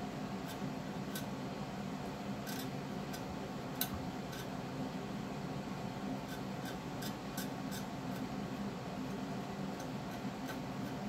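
Steady low background hum with faint, irregular light ticks and scratches of a small paintbrush working on slate.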